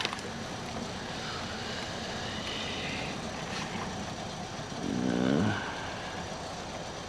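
Steady vehicle noise, with a brief murmur of a man's voice about five seconds in.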